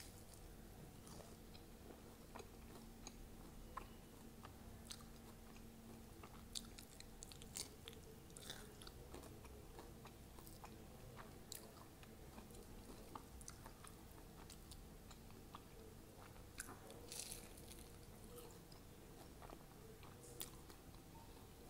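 Faint close-up chewing of a crisp fried sabudana vada (tapioca-pearl fritter) dipped in yogurt, with scattered small crunches and mouth clicks and a few louder crunches here and there.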